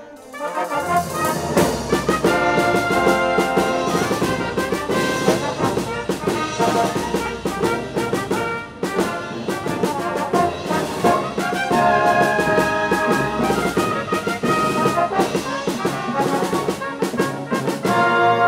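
Concert band of brass and woodwinds playing loudly, the full band coming in about a second in after a quiet passage.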